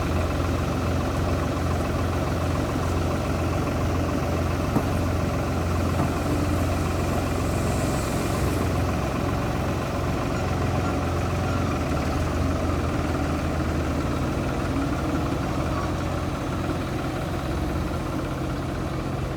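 Heavy construction machine's engine running steadily at an even low speed, a constant deep hum.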